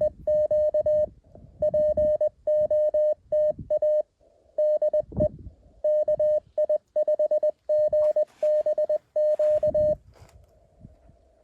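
Morse code keyed as a single steady tone of about 600 Hz from a Mountain Topper QRP transceiver, a run of dots and dashes that stops about ten seconds in, leaving faint receiver hiss.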